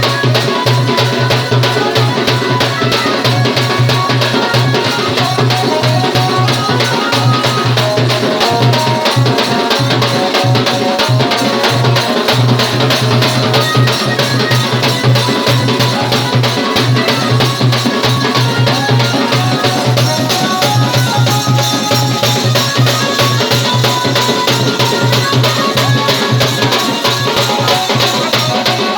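Folk music for a Saora dance: fast, steady drumming, with a melody of short stepping notes over it.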